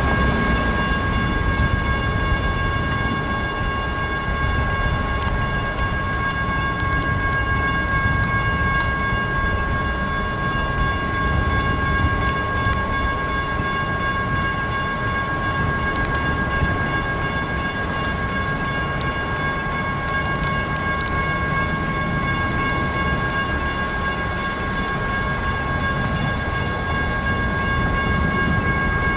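Electronic railroad crossing bells (GS Type 1 e-bells) ringing continuously, with several steady tones, over the low rumble of a light rail train passing through the crossing.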